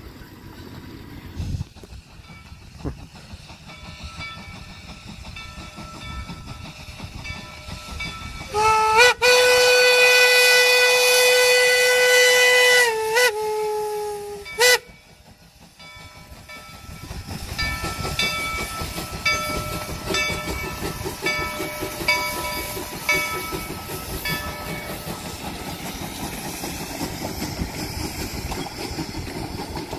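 Narrow-gauge 4-6-0 steam locomotive No. 168 sounds its steam whistle in a long blast of about four seconds, followed by two or three short ones. About seven seconds later it passes close by under steam, with a rhythmic exhaust and its train rolling on the rails.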